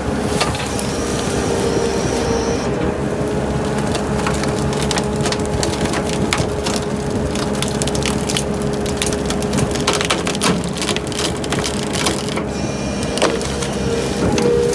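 A heavy machine's engine running steadily while wood cracks and splinters in many sharp snaps, thickest in the middle, as a tree saw cuts through trees.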